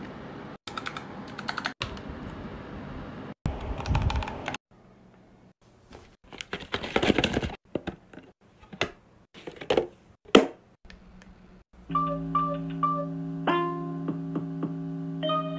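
Clicks of mechanical keyboard keys, then scattered clicks and knocks of a small plastic gadget being handled. Near the end, a retro pixel-art speaker plays electronic game tones: steady held notes with short beeps repeating over them.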